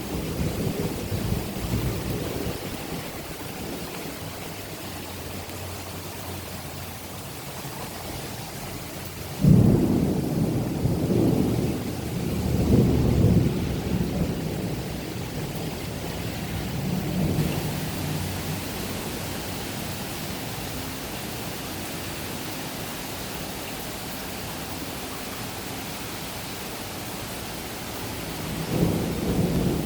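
Thunderstorm: steady rain hissing, with rolling thunder. A low rumble dies away in the first few seconds, then a sudden loud clap about nine seconds in rolls on, swelling and fading, for several seconds. Another rumble starts near the end.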